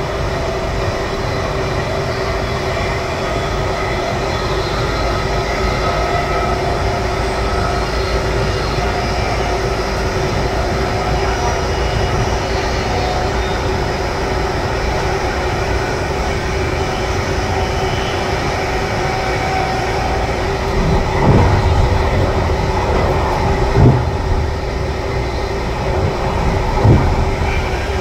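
Intercity passenger carriage running along the track, heard from inside the last car: a steady rumble of wheels on rail with a constant hum. Three short thumps come near the end, a few seconds apart.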